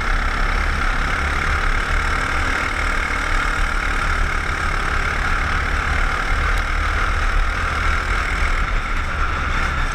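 Racing kart engine running steadily at speed, heard from an onboard camera on the moving kart, with a heavy low rumble under it.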